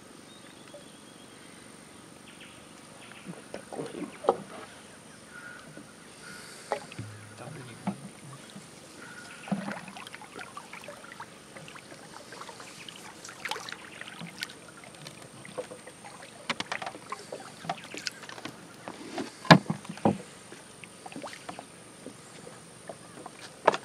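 Canoe being paddled slowly and quietly: scattered paddle strokes in the water and irregular knocks of wood against the hull, the loudest two close together near the end.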